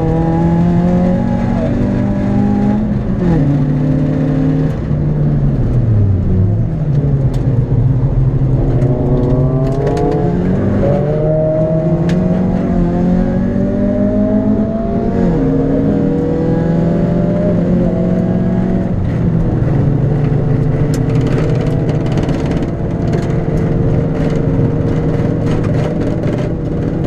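Citroën Saxo VTS's 1.6-litre four-cylinder engine heard from inside the cabin at track pace, revs climbing and dropping several times, then held at a steady pitch through the last third, over tyre and road noise.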